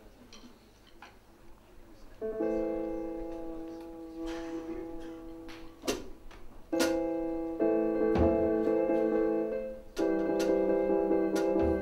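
Electric piano playing sustained chords in an improvised jazz trio: a soft opening with a few light percussive ticks, then a chord about two seconds in that rings and slowly fades, and fresh chords struck several more times, with scattered drum and cymbal hits between them.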